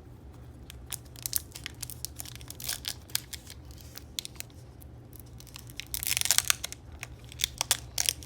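A Pokémon Pop Series 5 booster pack being torn open by hand, its foil wrapper crinkling and crackling. There is a longer tear about six seconds in.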